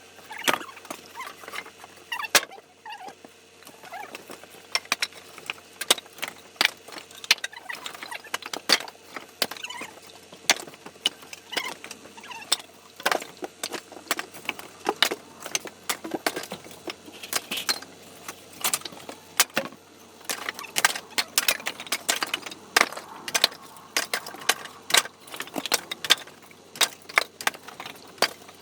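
Irregular knocks and clatter, as of split firewood being handled and stacked, at times several a second.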